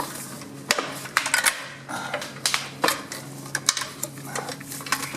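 Metal internals of a 700R4 automatic transmission clinking and knocking as a part is worked loose by hand inside the case: about a dozen sharp metallic clicks at irregular intervals.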